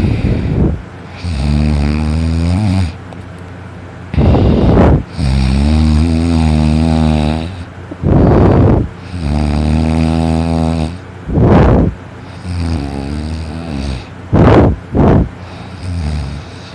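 A person snoring very loudly in deep sleep: about four breaths, each a short rough snort and then a longer pitched, buzzing snore, repeating every three to four seconds.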